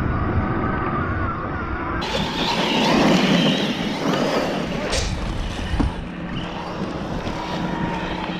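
Large brushless electric RC monster trucks driving over loose dirt and stones: a steady motor whine over the noise of tyres and gravel.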